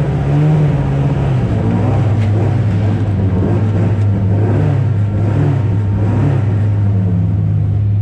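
Huffaker Genie Mk13 race car's engine running at a loud, heavy idle, its note rising and falling slightly every second or so, heard close up through the onboard camera.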